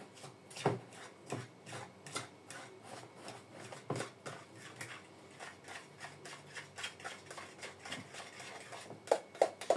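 A fork whisking pancake batter in a bowl: light, even clicks and scrapes, about two to three a second, with a few louder knocks against the bowl near the end.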